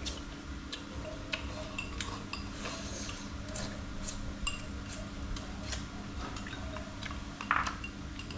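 Eating utensils clicking and clinking against bowls and plates as people eat, in scattered light taps over a steady low background.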